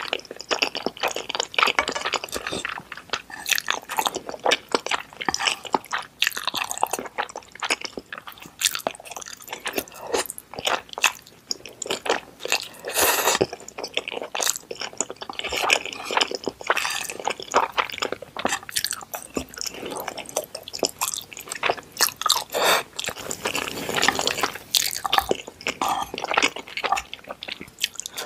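Close-miked chewing of instant noodles: a steady run of wet mouth clicks and squishes.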